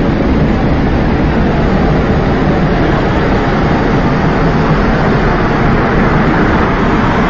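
Loud, steady rumbling noise with no distinct pitch and no separate impacts.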